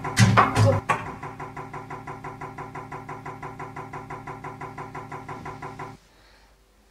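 A couple of loud, sharp hits, then a steady mechanical-sounding drone pulsing about six or seven times a second that cuts off suddenly about six seconds in.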